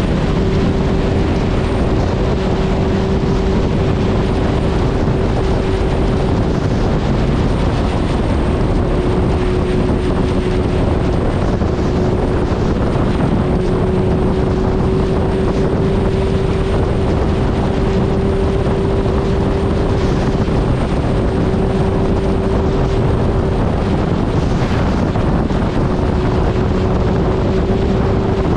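Suzuki Hayabusa inline-four motorcycle engine running at a steady cruising speed, its note holding level with no revving, under a strong rush of wind on the microphone.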